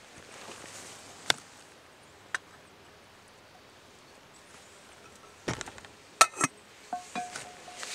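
Stainless steel cooking pot and its metal lid clanking together several times about five and a half seconds in, with a brief metallic ring after, as the lid is set on the pot. Two sharp clicks come earlier.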